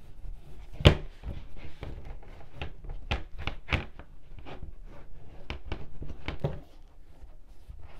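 Irregular light clicks and taps of hands working macrame yarn with a crochet hook, with one sharper knock about a second in. The tapping dies down about six and a half seconds in.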